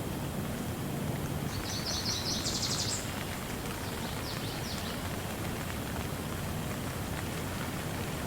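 Steady rain falling, a continuous even hiss. About a second and a half in, a bird sings a quick run of high repeated notes lasting about a second and a half, with a few fainter chirps a little later.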